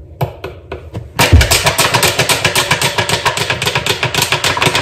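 Water glugging out of an upturned plastic drinking-water bottle onto a tablespoon. A loud, rapid run of gulps starts about a second in, as air bubbles back into the bottle.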